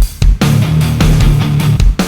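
Heavy rock background music with distorted electric guitar and a driving drum beat.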